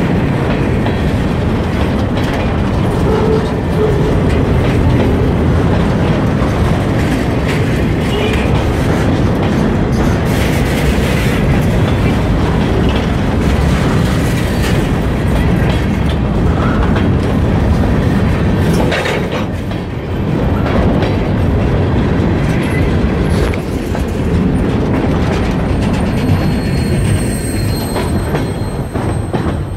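Freight train cars rolling past close by: a steady heavy rumble with the wheels knocking over rail joints, and a thin, high wheel squeal near the end.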